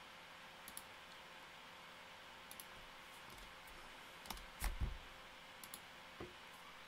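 A few scattered clicks from a computer's mouse, trackpad or keys, the loudest a heavier double knock about two-thirds of the way through, over a faint steady hum.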